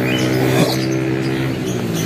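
Small motor scooter engine idling steadily, with a short falling squeak about half a second in.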